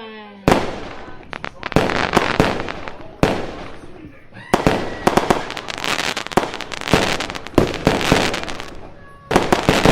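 Fireworks going off: a series of sharp bangs, about one every second or two, each trailing off into crackle.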